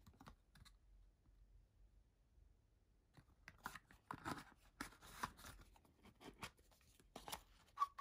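Faint handling of cardboard packaging: a Zippo lighter's black box and card sleeve being shuffled and the box opened, a run of short scrapes and light taps starting about three seconds in.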